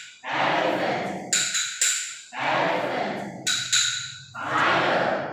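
A short recorded sound loop repeating about every two seconds: each round opens with a high ringing ping and a few sharp clicks, then a louder, lower rushing stretch.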